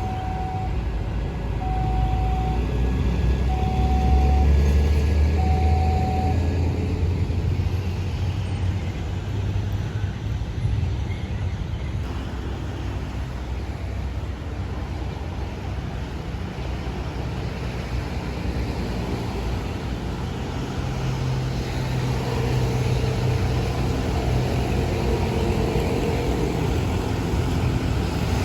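Steady low rumble of heavy vehicles running past, swelling a few seconds in and again near the end. An evenly repeating electronic beep, about one a second, sounds over it for the first six seconds.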